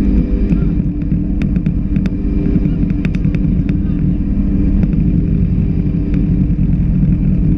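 Suzuki Grand Vitara's engine running steadily during a winch recovery, with scattered sharp clicks, most of them between about one and three and a half seconds in.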